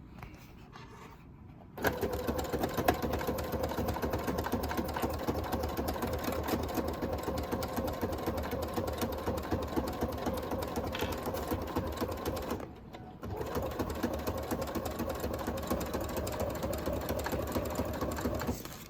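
Sewing machine stitching the sides of faux leather envelopes: it starts about two seconds in, runs at a steady fast stitch, stops briefly about two-thirds of the way through, then runs again until near the end.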